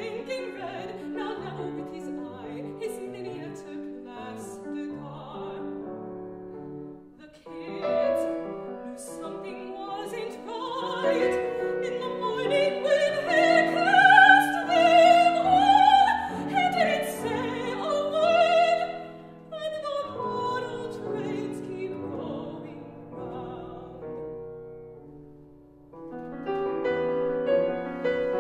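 Mezzo-soprano singing a classical art song with vibrato, accompanied by a Steinway grand piano. Her voice swells loudest in the middle, then falls away; the piano dies down shortly before the end and comes back in.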